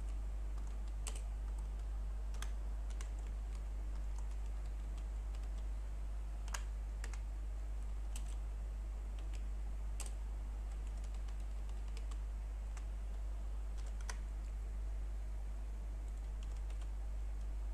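Scattered keystrokes on a computer keyboard, irregular single clicks a second or so apart, over a steady low hum.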